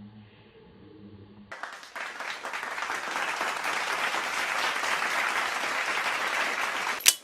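Applause, starting about a second and a half in, growing louder, and cut off by a sharp click near the end.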